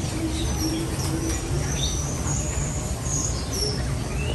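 Several birds chirping and calling, with short high chirps and whistled notes coming again and again over a steady low background rumble.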